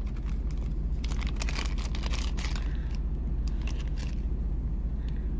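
Thin plastic zip-lock bag crinkling and rustling in bursts as a strand of small faceted glass beads is handled and pulled out, over a steady low rumble.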